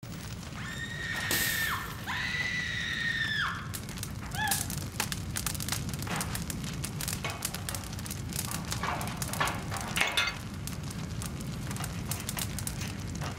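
Two long, high screams, then shorter cries, over the crackling of a burning building and a steady low rumble.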